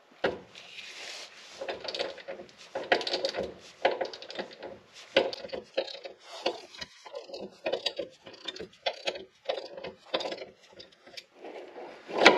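Ratchet wrench clicking in quick, irregular runs as it turns the forcing screw of a rear differential bushing removal tool on a Nissan 350Z, with crunching from the old diff bushing as it is drawn out. There is one sharp, loud click near the end.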